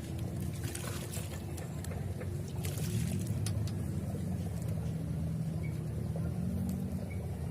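A motor running steadily with a low hum that drifts a little in pitch, with scattered light clicks over it.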